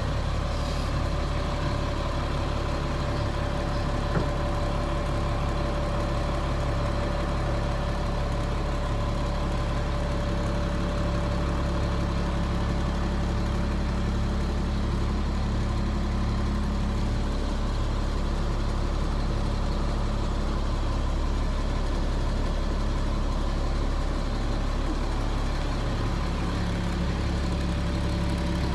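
Peterbilt 330 dump truck's diesel engine idling steadily, heard from inside the cab.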